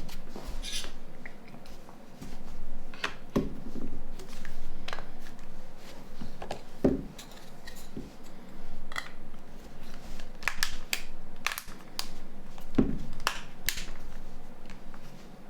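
Irregular sharp clicks and taps of small plastic parts as a Nokia C3-00 mobile phone is handled on a table, a few with a duller knock.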